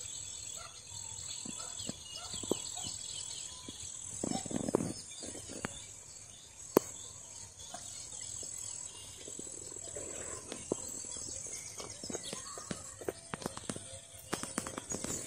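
Outdoor ambience: a steady high-pitched insect drone with a few bird chirps, soft rustles and thumps, and one sharp click about halfway through.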